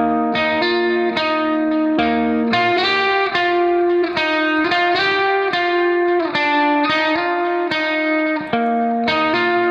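Background instrumental music: a guitar plays a steady run of plucked notes.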